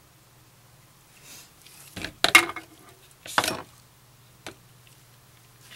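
A plastic utensil knocking and clattering against a plastic measuring jug on a steel counter: two clusters of sharp knocks about a second apart, then one faint click, over a low steady hum.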